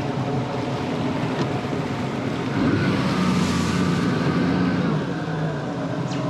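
Jet ski engine running at low speed over water and wind noise. It revs up about two and a half seconds in, then eases back a couple of seconds later.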